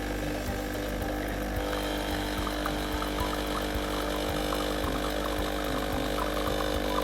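De'Longhi Dedica Style EC685 espresso machine's vibration pump running while it pulls an espresso shot: a steady mechanical buzz that changes tone about a second and a half in.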